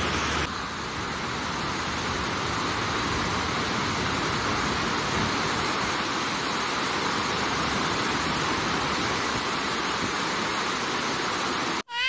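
Fukiware Falls, a wide horseshoe-shaped waterfall, with a steady rush of falling water, heard from above; it cuts off abruptly near the end.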